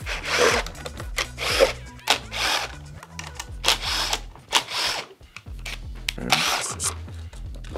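Cordless screw gun run in short bursts of about half a second, eight or so at uneven intervals, backing out the side cover screws of a trolling motor head. Background music with a steady bass plays underneath.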